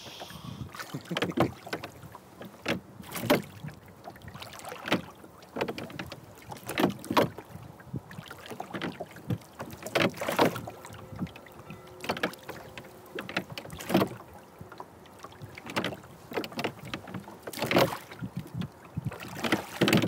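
Rowboat being rowed with a pair of wooden oars in steady strokes, about one every two seconds; each stroke is a short burst of sound from the oars working in their oarlocks and dipping into the water.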